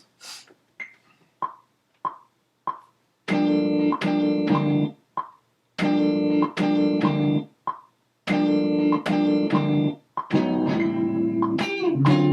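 Slices of a chopped guitar sample triggered in Native Instruments Maschine to build a melody. For the first three seconds or so there are short single plucked notes, then longer guitar chord chops that start and cut off abruptly, one after another.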